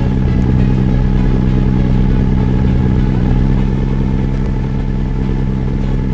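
An engine running steadily at constant speed, with an even, unchanging hum.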